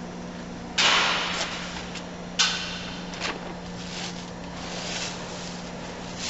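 Multi-ply paper powder bag being opened at the top: a loud rip about a second in and another sharp one about two and a half seconds in, then paper and plastic liner crinkling and rustling as a hand works inside the bag. A steady low hum runs underneath.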